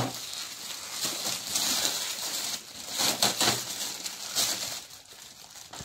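Gift-wrapping paper being torn and rustled by hand in short bursts as a present is unwrapped.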